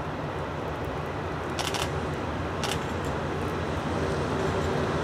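Norfolk Southern freight train's GE Dash 8 diesel locomotives approaching: a steady low engine rumble that grows louder, with two brief crackles a little over a second apart near the middle.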